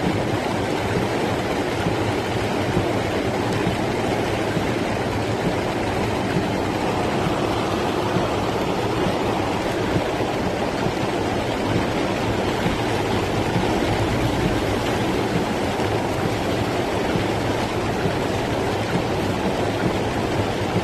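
Rainwater rushing steadily through a flooded street in a cloudburst, a constant torrent of flowing water.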